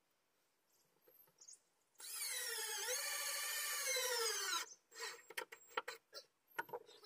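A power drill runs for about two and a half seconds, its whine dipping in pitch and then sagging as it takes load, as when driving a screw into wood. A run of short clicks and knocks follows.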